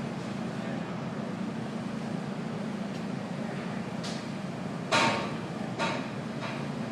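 A few sharp knocks or clicks, like small tools being handled on a work surface, the loudest about five seconds in with a short ring after it, another just under a second later; a steady low hum runs underneath.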